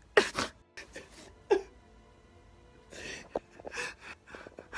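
A young man crying without words: two brief whimpers that fall in pitch, then a quiet pause, then short gasping, sniffling breaths.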